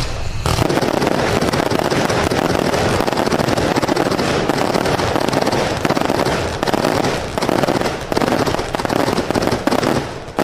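Wizard Fireworks 1.4G 225-shot straight salute cake with color tails firing: an unbroken, rapid string of salute bangs, 225 shots in about 12 seconds.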